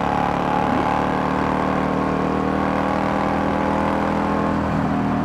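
Harley-Davidson Sportster's air-cooled V-twin engine running steadily while cruising down a highway.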